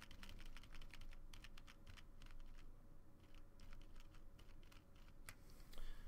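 Faint, quick clicking of computer keys, irregular and several a second.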